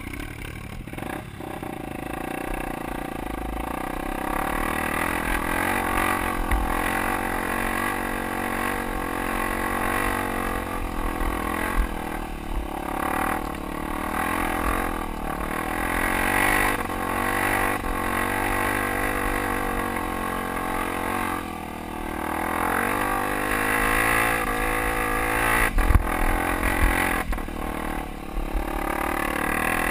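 Dirt bike engine running at low speed up a rocky trail, its revs rising and falling, with the rattle of the bike over loose rock and a couple of sharp knocks near the end.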